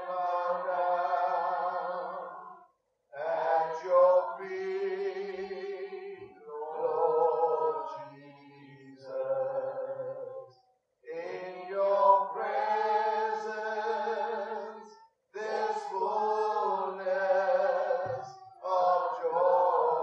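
A small group of worship singers singing a praise song unaccompanied, in sung phrases of a few seconds each with short breaks between them.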